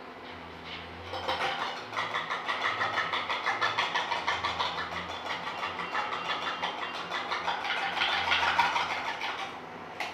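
Dalgona coffee mix (instant coffee, sugar and water) being beaten to a foam in a glass. It starts about a second in and goes on as a quick, regular whipping clatter.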